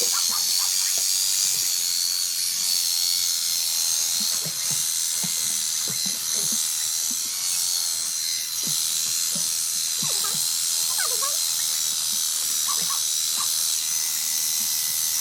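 Electric sheep-shearing clippers running with a steady high whine.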